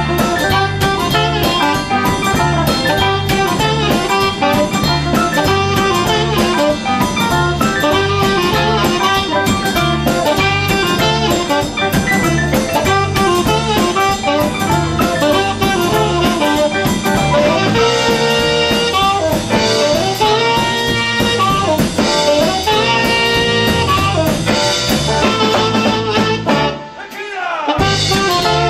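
Live garage-swing band: a saxophone plays the lead over a hollow-body electric guitar, upright bass and drum kit with a steady swing beat. The band drops out briefly about a second and a half before the end, then comes back in.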